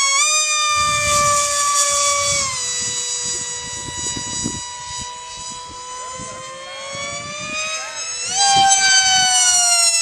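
Electric radio-controlled foam jet's motor and propeller whining as it flies overhead. The pitch rises as the throttle opens at the start and holds steady, then drops about two and a half seconds in as the throttle is eased. About eight seconds in it climbs sharply to a high full-throttle whine. Wind rumbles on the microphone underneath.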